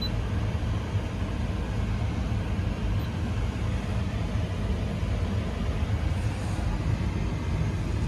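Steady low rumble inside the cabin of a Mitsubishi Outlander PHEV. A faint short beep sounds at the start and again about three seconds in as the touchscreen is pressed.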